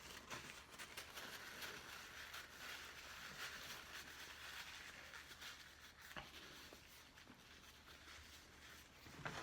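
Near silence: quiet room tone with faint paper-napkin rustling and a few light taps.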